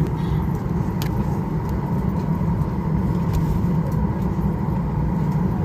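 Airliner cabin noise: the steady low rumble of the jet engines and air flow heard from inside the passenger cabin.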